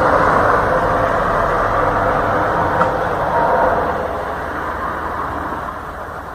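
A loud, steady low drone with a few faint held tones in it, fading away over the last two seconds. This is one of the unexplained humming 'sky sounds' that people record outdoors, and its source is unknown.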